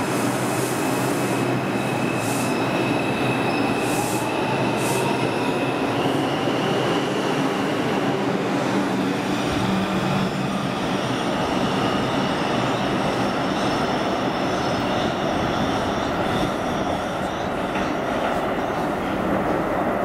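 Bombardier R142 subway train pulling away and gathering speed: the whine of its Alstom ONIX IGBT inverter and AC traction motors rises in pitch over the first several seconds, over steady wheel and rail noise with a few clicks early on.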